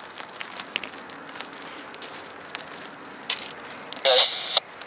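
Dry grass fire burning, with many small sharp crackles and pops over a soft steady hiss. About four seconds in, a brief loud pitched sound, much louder than the fire, cuts in for about half a second.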